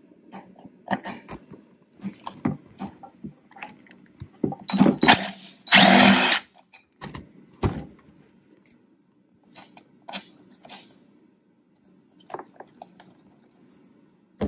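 Clicks, taps and rattles of hands and a tool working on a backpack blower's engine while a screw and wire connectors are taken off, with one loud burst of under a second about six seconds in.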